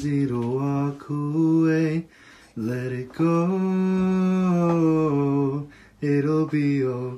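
An adult singing a slow song in a low voice, holding long notes in phrases with short pauses for breath between them.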